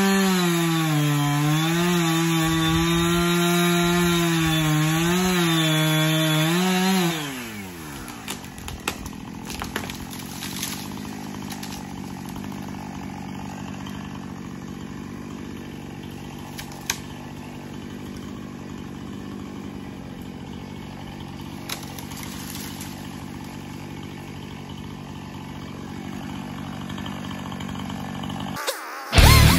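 Chainsaw at full throttle cutting firewood, its pitch wavering under load. About seven seconds in, the throttle is released and the engine winds down to a steady idle, with a few light knocks. Music comes in right at the end.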